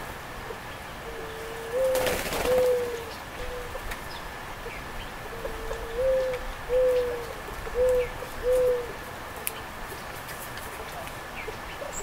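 A dove cooing in two phrases, each opening with a longer coo that slurs upward and followed by two or three shorter, even coos. A brief rush of noise comes about two seconds in.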